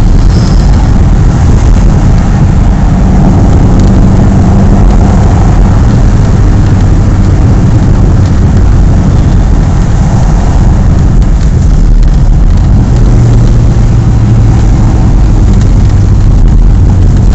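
Ford Escort's four-cylinder engine on twin Weber DCNF 40 carburettors, running steadily at about 3,000 rpm under way, heard loud from inside the cabin along with road and wind noise.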